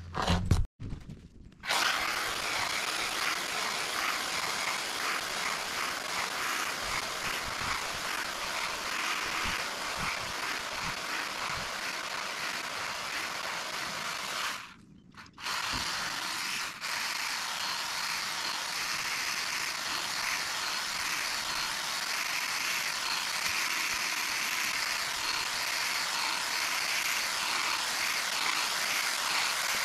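Battery pole hedge trimmer running as it cuts the hedge, a steady whirr of the reciprocating blades. It starts about two seconds in and stops briefly about halfway before running again.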